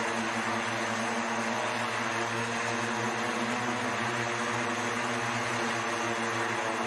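SkyDrive SD-03 flying car's electric rotors whirring steadily in a hover, a drone-like hum with several steady tones over a rushing hiss.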